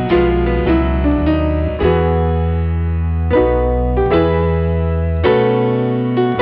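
Background piano music: slow struck chords over held bass notes, changing every second or two.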